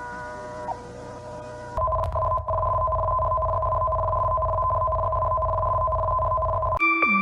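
Emergency alert system alarm tones: a steady chord of electronic tones gives way, about two seconds in, to a louder steady two-note tone over a low hum. Near the end a different alert begins, with steady high tones and repeating notes that fall in pitch about twice a second.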